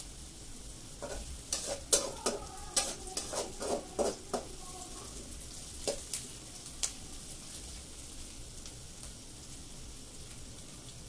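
Metal spatula scraping and clinking against a metal kadai as chopped onion is stirred: a quick run of strokes in the first few seconds, then a few more about six seconds in. Under it, the onion sizzles steadily as it fries.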